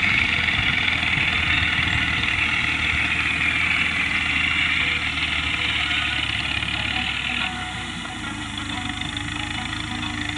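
Al-Ghazi tractor's diesel engine running steadily while it drags a rear blade across loose sand, growing quieter as the tractor moves away, with a drop in level about seven and a half seconds in.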